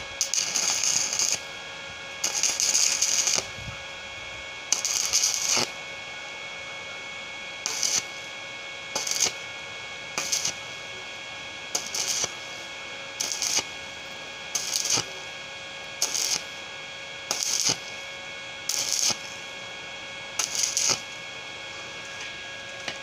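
Stick (arc) welding on thin 1x1 galvanized steel tube, the arc crackling and hissing in stop-start bursts: three longer bursts early on, then a dozen short ones about every second and a half. The short intermittent strikes keep the arc from burning holes through the thin tube wall.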